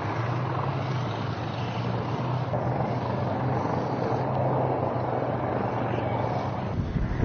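A vehicle engine running steadily: a constant low hum under a rushing noise.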